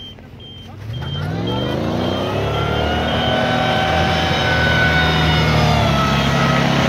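Land Rover Defender 110's 3.5-litre V8 revving up about a second in and held at high revs, as the wheels spin and churn through deep snow.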